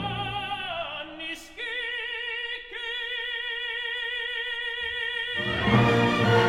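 Operatic singing: a voice sings a short falling phrase, then holds one long high note with wide vibrato for about four seconds, almost unaccompanied. The full orchestra comes in near the end.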